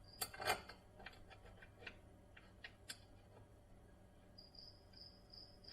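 Faint clicks and light ticks of a screw being hand-started into the jet ski's intake grate, two sharper clicks near the start, then scattered ticks. From about two-thirds of the way in, crickets chirp in a steady pulsed series.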